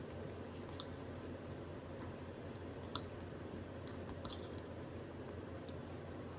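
Table knife and fork cutting through a soft almond-topped cinnamon roll on a ceramic plate: scattered light clicks of metal cutlery against the plate and soft squishing of the bread. A steady low room hum runs underneath.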